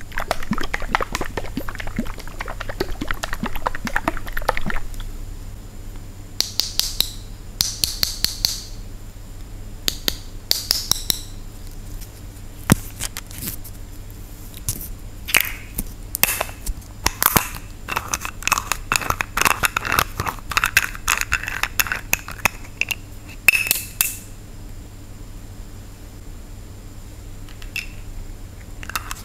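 A bottle being handled. It is shaken for the first few seconds, then its cap is twisted open and closed in a run of sharp clicks, scrapes and rattles.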